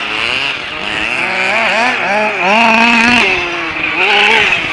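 Motors of radio-controlled off-road buggies running at high revs on a dirt track. The pitch rises and falls repeatedly as they accelerate and slow down, with more than one motor heard at once.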